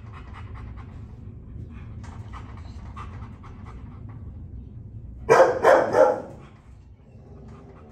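A German Shepherd panting steadily in quick, even breaths. About five seconds in, a dog barks three times, loud and close together.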